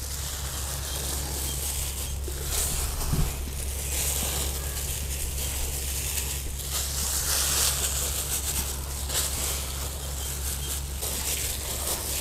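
Steady hissing, rustling outdoor background noise that swells and fades, over a constant low hum, with one small knock about three seconds in.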